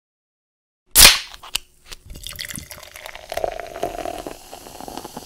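Logo sting sound effect: a loud sharp crack about a second in, a smaller click just after, then a crackling, sputtering texture with a faint tone underneath that carries on.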